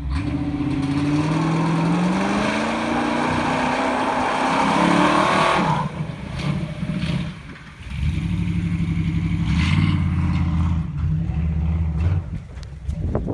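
Lifted multi-axle pickup truck doing a burnout: the engine revs steadily higher for about six seconds while the tires spin on the pavement, then drops off abruptly. After a short dip the engine runs on at a lower, steadier speed.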